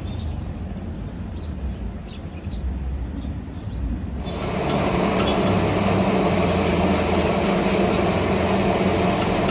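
A low rumble, then about four seconds in a 7018 stick electrode arc starts: a steady crackling hiss with fine sharp pops.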